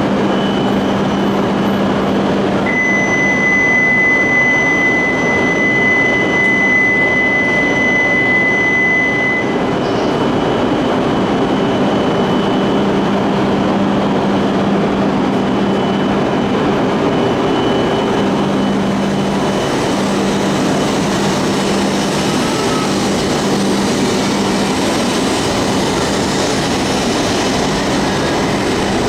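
Steady running noise of a Shinkansen train at a station platform. A single high electronic tone starts a few seconds in and holds for about seven seconds before stopping.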